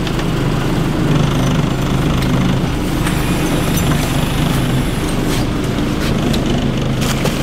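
Boat engine running steadily at low revs: a low, even hum, with a few faint clicks over it.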